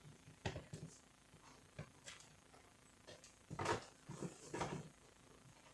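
Scattered clicks and light knocks of plastic and metal copier fuser parts being handled and set down, with a louder cluster of knocks and rubbing about three and a half seconds in.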